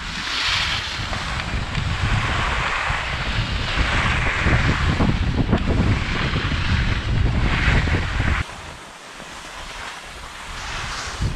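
Wind buffeting a body-worn camera's microphone while skiing downhill, with the hiss and scrape of skis sliding over packed snow that swells and fades with each turn. The low wind rumble drops away suddenly about eight seconds in, leaving a quieter snow hiss.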